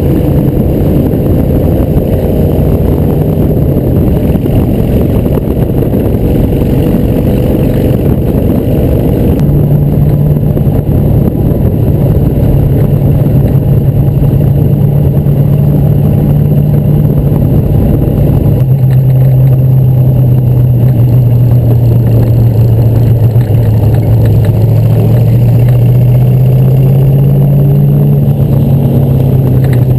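Ford flathead V8 of a 1952 open-wheel race car running under way, heard on board with wind rushing past. The engine note holds steady for long stretches, shifts in pitch twice, and climbs slowly in the last third as the car accelerates.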